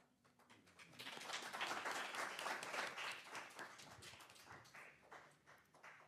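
A small audience applauding. The clapping starts about a second in and thins out near the end.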